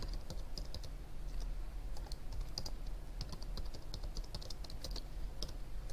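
Typing on a computer keyboard: a steady run of irregularly spaced keystroke clicks.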